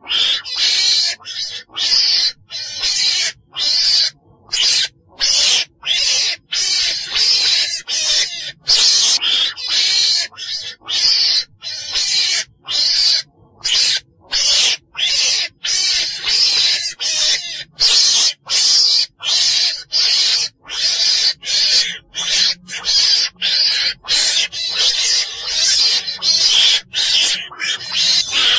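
Recorded call of a chồn đèn weasel, played as a hunting lure: short, harsh, hiss-like calls repeated in quick succession, about two a second with brief gaps between them.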